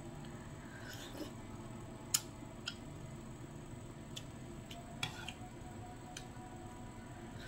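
Close-miked eating of glass-noodle soup: soft chewing and wet mouth sounds with a few short sharp clicks, the loudest about two seconds in, over a faint steady hum.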